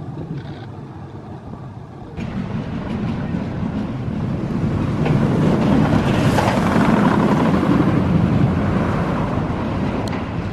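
Rocky Mountain Construction wooden roller coaster train running along its Topper Track, a steady rumble that comes in loudly about two seconds in, peaks through the middle and eases a little near the end.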